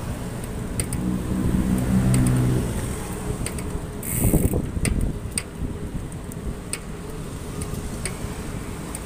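Riding noise picked up by a handlebar-mounted phone on a moving bicycle: a steady road and wind rumble with frequent small clicks and rattles. A passing vehicle's engine hums for a couple of seconds from about a second in, and a brief, louder burst of noise comes about four seconds in.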